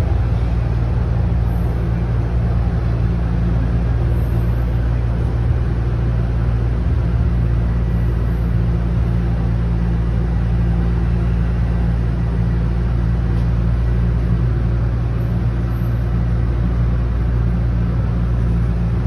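Toronto Rocket subway train heard from inside the car: a steady low rumble and hum as it runs along the station platform.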